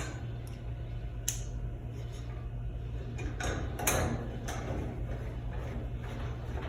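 A few scattered light clicks and knocks as the metal rear cover plate of a Whirlpool washing machine is hooked on and fastened, over a steady low hum.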